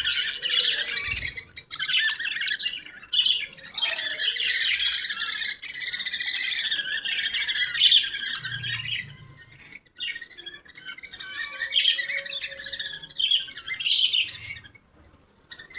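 Pet lovebirds chattering and chirping in a dense, continuous stream of high, rapid calls, with short lulls about ten seconds in and near the end.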